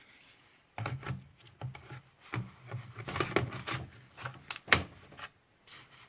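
Hard plastic being handled: a lithium-ion battery pack and a chainsaw's housing knocking, rubbing and clicking irregularly as the battery is fitted. One sharp click a little under five seconds in is the loudest sound.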